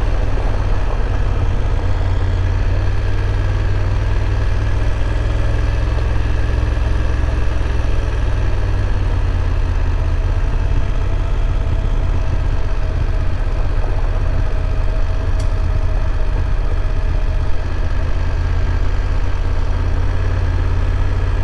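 BMW F850 GS parallel-twin engine running steadily at low revs, with one brief knock near the end.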